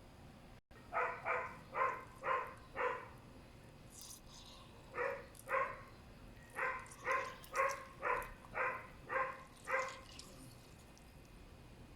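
A dog barking repeatedly in short, high-pitched barks, about two a second. There is a run of five, a pause of about two seconds, then nine more.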